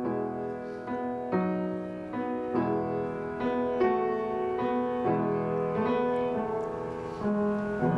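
Piano playing a slow introduction to a choral carol, sustained chords struck about once a second.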